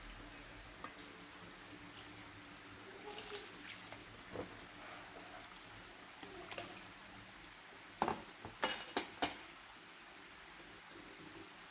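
Faint wet handling sounds of rinsed pumpkin seeds being drained in a stainless mesh sieve and picked over by hand, with small splashes and drips. About eight seconds in, a quick run of four or five sharp clicks as the seeds are dropped and spread onto a metal baking tray.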